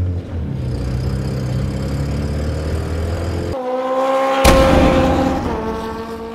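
1993 Toyota pickup truck's engine running as it is driven. About three and a half seconds in, it cuts off abruptly and gives way to a steady pitched hum, with a sharp hit a second later, that then fades away.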